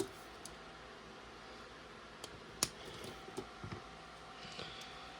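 Scattered small clicks and taps of LEGO pieces being handled while rubber tires are fitted onto black plastic wheel rims, with one sharper click about two and a half seconds in.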